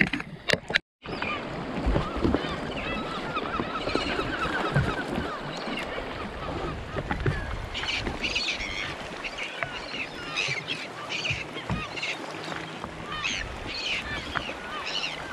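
A large flock of seabirds calling over the sea: many short overlapping squawks and chirps, thicker in the second half.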